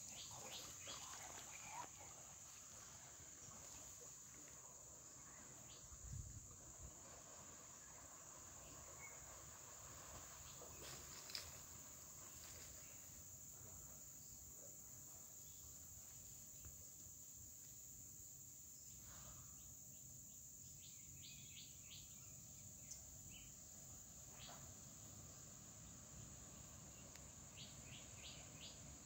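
Faint, steady high-pitched drone of insects, with a few short, faint chirps near the end.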